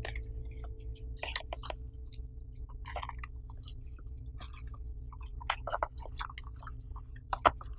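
Cables and packaging being handled and packed into an accessory box: scattered clicks, taps and rustles, with a sharp click near the end. Quiet background music runs underneath.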